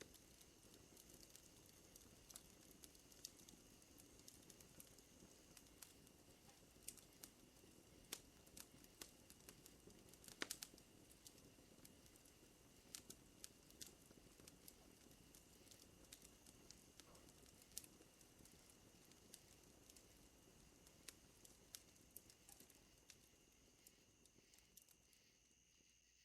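Faint crackling wood fire, with irregular sharp pops and one louder pop about ten seconds in, over a steady high hum of night insects.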